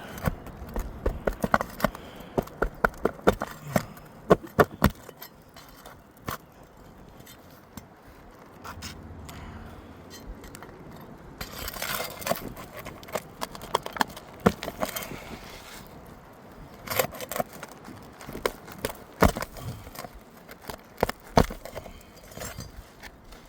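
Sharp metal clicks and scrapes from a thin pry bar working 2-inch roofing nails out from under a lifted three-tab asphalt shingle, with clusters of quick clicks near the start and again near the end.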